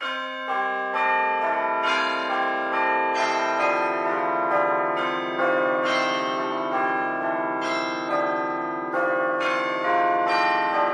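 Clock tower bells ringing a peal, a new bell struck about every half second, each one ringing on under the next.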